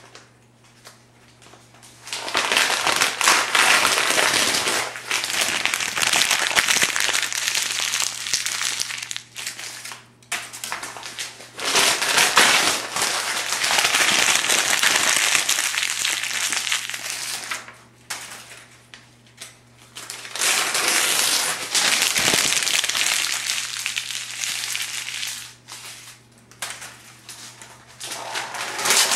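Thin phone-book pages being crumpled into balls by hand, a dense crackling that comes in several stretches of a few seconds each with short pauses between them.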